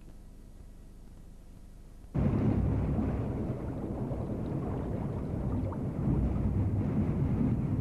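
Faint room tone, then about two seconds in a steady low rumble cuts in suddenly: a small passenger ferry's engine running as it crosses open water.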